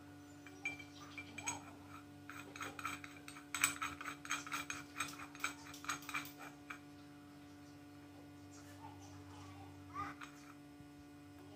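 Irregular metallic clicks and clinks of steel bicycle pedal-drive parts being handled and fitted together: a bearing housing, a geared shaft and bearing pieces. The clicks come thickest in the first half and stop well before the end, with a faint steady hum underneath.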